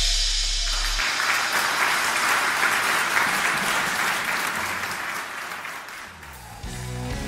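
Audience applauding, a dense steady clapping that fades after about five seconds as a band starts to play. A deep bass tone dies away in the first second.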